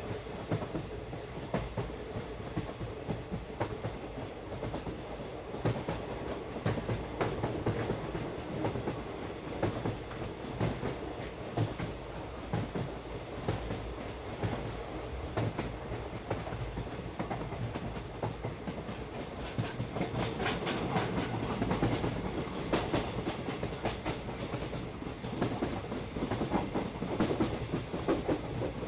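Park toy train running along its track, its wheels clicking and clacking over the rail joints above a steady low rumble.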